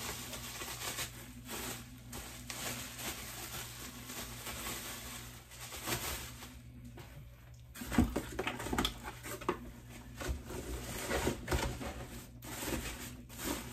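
Clear bubble-wrap plastic crinkling and rustling as a small pink fan is handled and unwrapped. The handling noise comes in irregular scrapes and crackles, and is busiest about eight seconds in.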